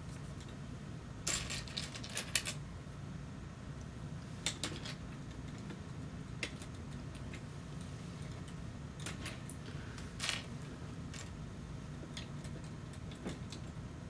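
Plastic LEGO bricks clicking and clattering as small pieces are handled and pressed onto a model: a rattling run of clicks a little over a second in, then scattered single clicks, over a steady low hum.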